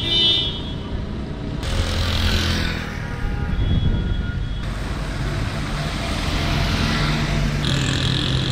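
Street traffic: vehicle engines running past steadily, with a car horn sounding at the start and again near the end.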